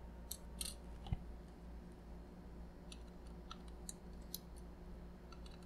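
Faint, irregular clicks and ticks of a small screwdriver and tiny screws being worked loose from a graphics card's heatsink, over a low steady hum.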